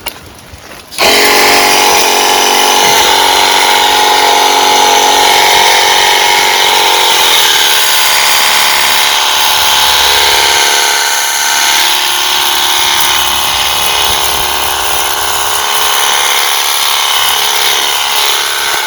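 Battery-powered portable pressure washer switching on about a second in and running steadily: the hum of its small electric pump under the hiss of the water jet spraying. The pump's hum weakens about halfway through while the spray noise carries on.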